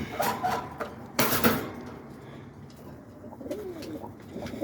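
Roller pigeons cooing in a loft, a low rising-and-falling coo in the second half. About a second in there is a short, loud rustling burst.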